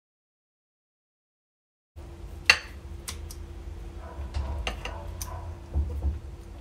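Silent for about two seconds, then kitchen scissors snipping through grilled squid on a plate, held down with tongs: a run of sharp metal clicks and clinks against the plate, the loudest one just after the sound comes in, over a faint steady hum.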